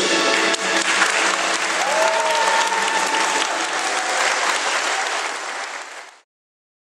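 Audience applauding as the pupils bow, with the last of the music dying away in the first half second. The clapping stops abruptly about six seconds in.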